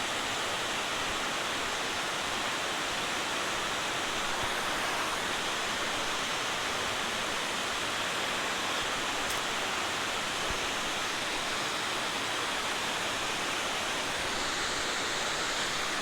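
Water rushing over a river spillway: a steady, unbroken rush.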